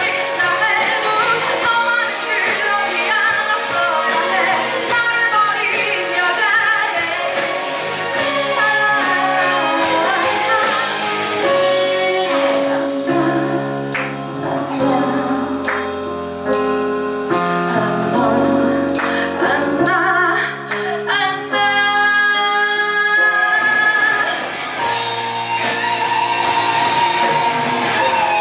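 Live band music: a woman singing over guitar and drums, with the voice giving way to a stretch that is mostly instrumental from about the middle on.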